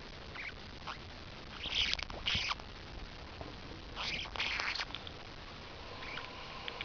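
A pet parrotlet making a strange scratchy, hiss-like noise: two pairs of short bursts, the first pair about two seconds in and the second about four seconds in, with faint clicks between.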